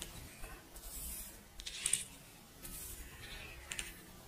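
A cat licking and lapping milk on a glass surface: faint wet lapping sounds in short bursts, about one a second.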